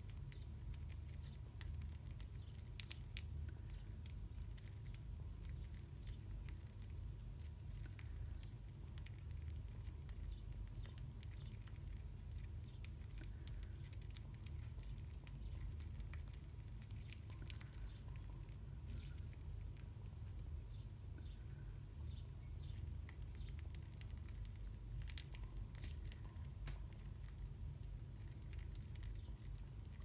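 Two budgerigars pecking and husking seed from a person's palm: irregular small beak clicks and crackles over a low steady rumble.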